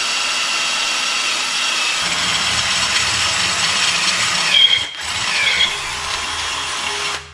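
Cordless drill running under load, drilling into a metal intake flange clamped in a bench vise. A steady whir, with a brief squeal of the bit about four and a half seconds in, cutting off suddenly near the end.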